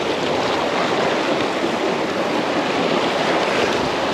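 Sea surf washing steadily on the beach, with wind rumbling on the microphone.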